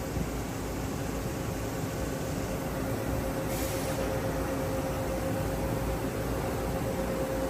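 Steady noise of industrial machinery at a wheel spinning machine cell, with a steady hum that comes up louder after about three seconds and a short hiss about three and a half seconds in.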